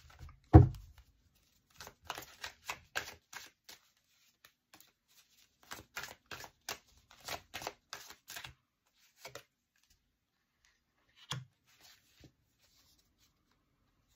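A deck of oracle cards being shuffled by hand: runs of quick card flicks and snaps in two spells, with a louder knock about half a second in and a single softer thump later on.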